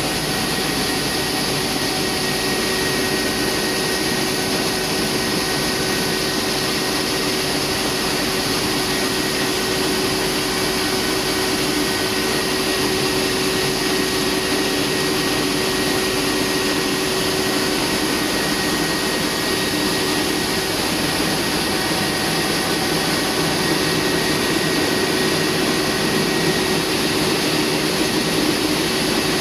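Rice milling plant machinery running steadily under trial: an even, loud mechanical rush with a couple of steady whining tones held over it.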